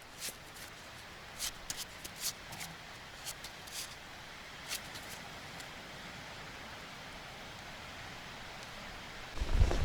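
Faint steady hiss with a few light, sharp clicks over the first five seconds, then wind starts buffeting the microphone loudly near the end.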